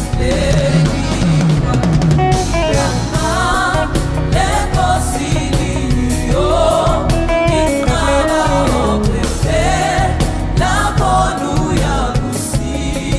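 Gospel choir singing with several voices over a live band, with a steady drum-kit beat and keyboard.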